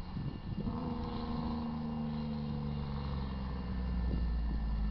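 Air horn of an approaching BNSF freight train's lead locomotive, a GE ES44DC, sounding a held chord for the grade crossing, over a low rumble that grows louder toward the end.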